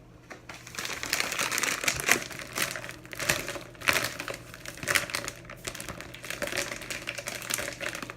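A small packaging bag being handled and turned over, with irregular crinkling and rustling that starts about half a second in.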